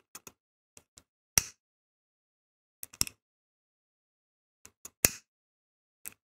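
Disposable flint lighter being struck with the thumb: a few groups of sharp, rasping clicks from the spark wheel. The loudest strikes come about a second and a half in and about five seconds in.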